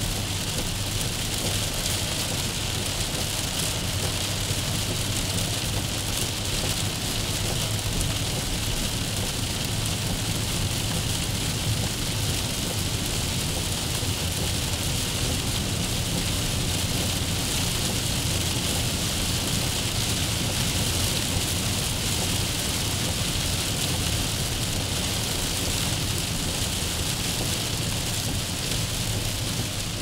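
Heavy rain hitting a car's windscreen and body, heard from inside the car, as a steady, even hiss. A low steady rumble from the moving car runs underneath.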